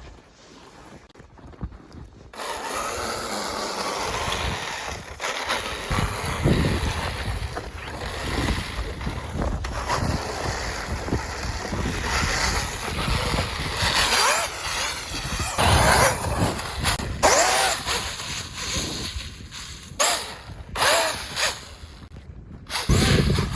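Strider G4 RC snowmobile with a Tekin 2250kv brushless motor driving. Its motor whine rises and falls over the track noise, and there is wind noise on the microphone. The sound starts abruptly about two seconds in.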